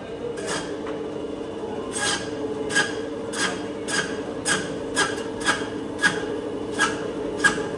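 Meat band saw running with a steady hum as bone-in goat ribs are pushed through the blade, each cut through the bone a brief rasp, coming about every half second from about two seconds in.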